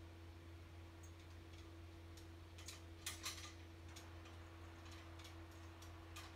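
A few faint clicks and scratches, the loudest cluster about halfway through, from a cat's claws and paws on a small wooden clothes-drying rack as it turns, over a steady low hum.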